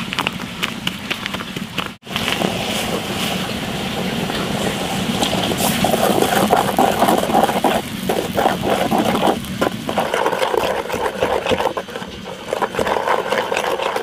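Wooden chopsticks mixing flour and water in a metal pot, with frequent clicks and scraping against the pot over a steady low rumbling background.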